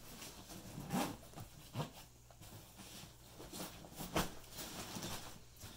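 Rustling and handling of a nylon dive bag being packed with fins, with a few short scrapes about one, two and four seconds in.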